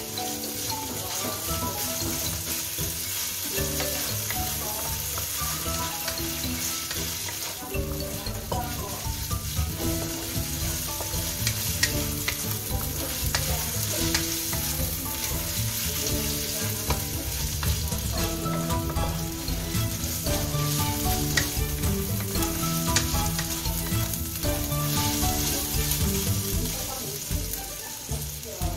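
Shredded chicken and garlic sizzling in hot oil in a wok, stirred and tossed with a wooden spatula, with scrapes of the spatula against the pan. Background music with a beat plays underneath, its bass coming in about eight seconds in.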